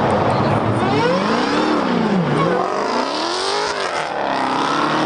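Dodge Challenger Hellcat's supercharged V8 revving hard as the car pulls away: the engine pitch climbs and drops twice, then starts climbing again near the end.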